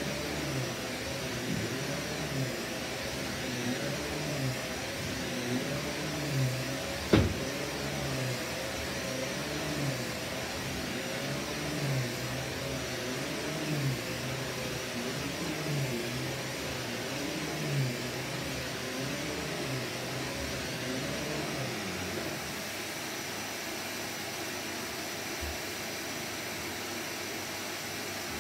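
Vax Commercial VCU-03C upright vacuum cleaner running on carpet, with a steady high whine; its hum rises and falls about every two seconds as it is pushed back and forth. A single sharp knock comes about seven seconds in, and in the last few seconds the strokes stop and it runs evenly.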